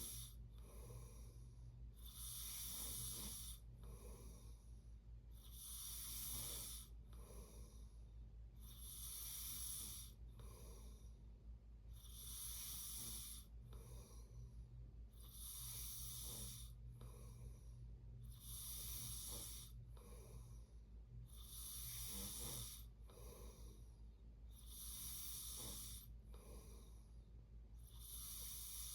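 A person snoring in sleep, one slow, breathy snore roughly every three seconds in an even rhythm. A steady low hum runs underneath.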